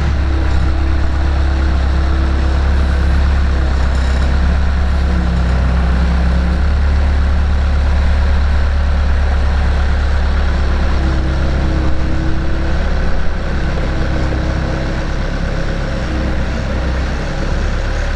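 Bobcat skid steer loader's engine running steadily at a loud, even level.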